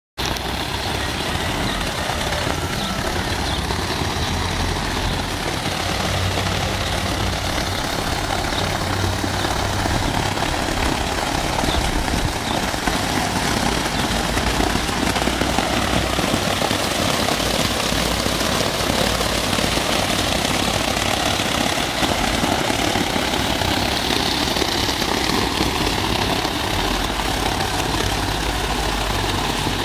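Water falling from an artificial rock waterfall fountain and splashing steadily into its foaming pool.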